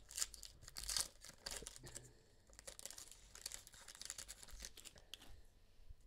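Trading cards sliding and scraping against one another as a stack of pack-fresh basketball cards is shuffled through by hand. Faint, scratchy rustling with two sharper scrapes near the start and about a second in.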